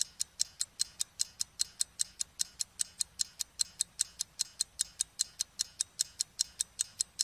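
Clock-ticking sound effect for an animated countdown: sharp, even ticks, about five a second.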